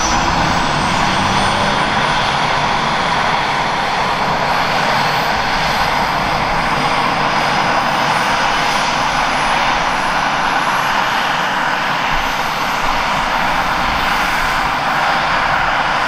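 Airbus H135 helicopter with twin Pratt & Whitney PW206B3 turboshaft engines running on the ground: a steady, loud turbine and rotor noise. A high whine rises slowly in pitch throughout.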